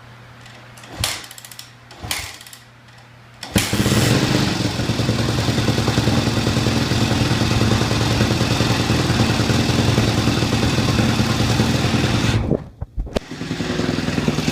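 Yamaha YZ250F's single-cylinder four-stroke engine starting after a top-end and bottom-end rebuild: two short failed attempts about a second apart, then it catches and runs loudly with a rapid, uneven beat. Near the end the sound drops away for under a second before the engine picks up again.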